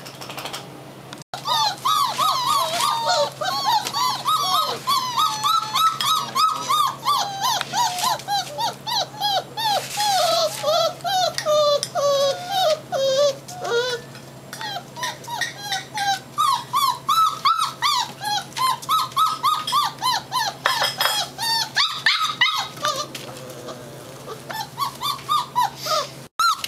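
Young puppies whimpering and squealing in a rapid string of short, high-pitched cries, several a second.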